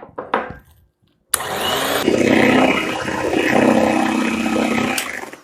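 Electric hand mixer switched on about a second in, its motor speeding up and then running steadily as it beats eggs and sugar, and switched off near the end.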